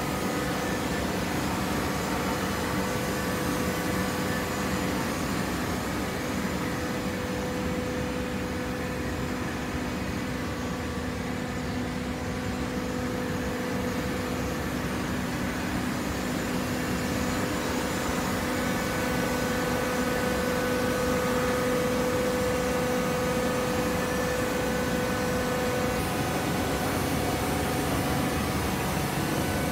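Horizontal baling machinery running: a steady mechanical hum with a steady whine that grows a little louder past the middle.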